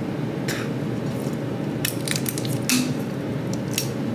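Fingernails scratching and picking at a sticker stuck on a clear glass carafe: irregular short scratches and small clicks, with light taps on the glass.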